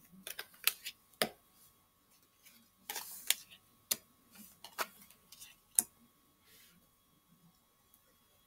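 Tarot cards being handled and laid out: a run of sharp, irregular card snaps and clicks with a brief rustle of cards sliding about three seconds in, fading out after about six seconds.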